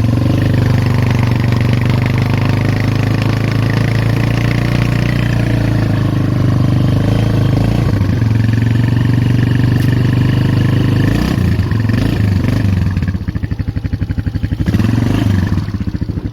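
Polaris Magnum 425 ATV's four-stroke single-cylinder engine held at high revs for about eleven seconds under heavy load while the machine is stuck in deep snow. Near the end the revs drop and then surge up again a couple of times.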